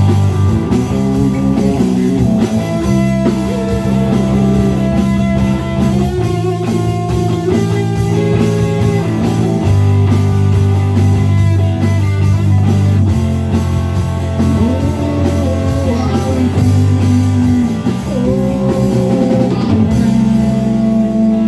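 A band playing rock music: a guitar lead with bent, gliding notes over held chords, bass and drums.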